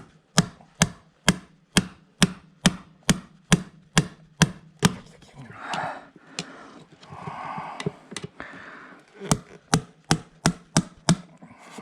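Hammer blows, about two a second, a run of a dozen, then a few seconds of scraping, then a second quick run of about seven blows: hammering to drive a part out of a moped's wheel hub.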